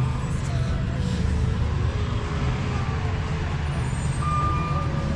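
Outdoor ambience: a steady low rumble, with a faint steady high tone coming in near the end.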